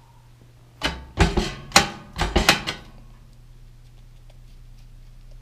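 Lever handle of a locked Cashguard electronic-keypad steel safe being yanked and rattled: a quick series of seven or eight sharp metal clanks over about two seconds, the door staying shut.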